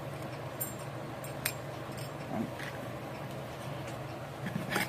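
Hands handling metal votive candle molds and wicks: a few light clicks and taps over a steady low hum, with a louder clatter near the end.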